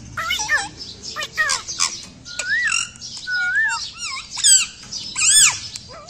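Rose-ringed parakeet calling: a rapid string of short squawks and chirps, many rising and falling in pitch, with the loudest harsh squawks about four and a half and five and a half seconds in.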